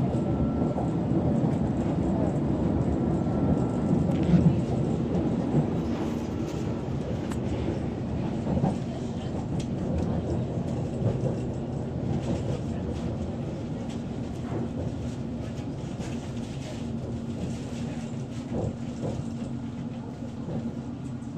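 London Underground S7 Stock train running on the Hammersmith & City line, heard from inside the carriage: a steady rumble of wheels, track and traction with occasional clicks. The noise fades gradually as the train slows on the approach to a station.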